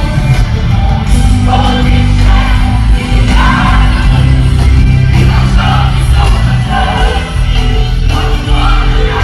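Live gospel praise-and-worship music: a band with a heavy, steady bass under sung vocals.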